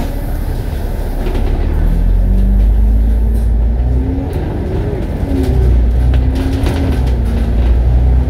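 Double-decker bus driving along the road, heard from inside: a deep, steady engine rumble, with a whine that rises and falls in pitch as the bus accelerates and changes gear.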